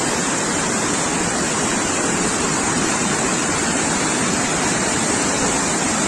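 Waterfall with falling water rushing steadily and evenly, with no change in level.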